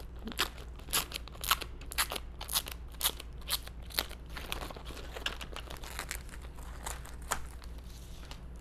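Clear plastic wrap crinkling and crackling in irregular snaps as it is peeled off a roller shade's long headrail, busiest in the first half and thinning out toward the end.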